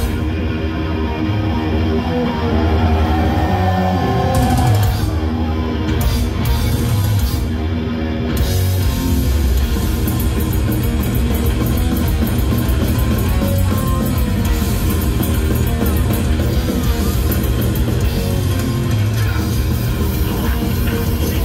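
Heavy metal band playing live through a large PA: distorted electric guitar riffing over bass and drums. From about eight seconds in, the cymbals fill in more steadily.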